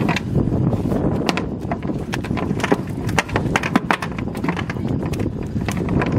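A net heavy with fish being hauled by hand over the side of a small boat: many sharp, irregular knocks and taps over a steady low rumble of wind on the microphone.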